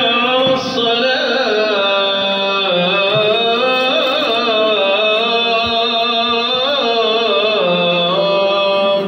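A solo voice chanting one long, unbroken melodic line with wavering, ornamented pitch, which stops abruptly at the end.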